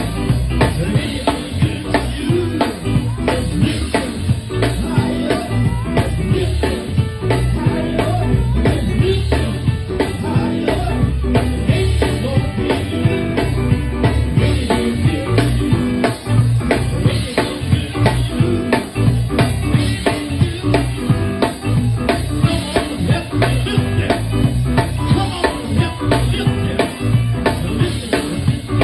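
Live band playing a groove: drum kit keeping a steady beat over a heavy bass line, with keyboard.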